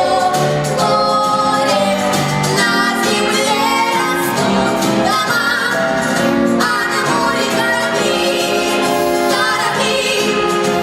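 A ballad: a woman singing held notes of the melody over instrumental accompaniment.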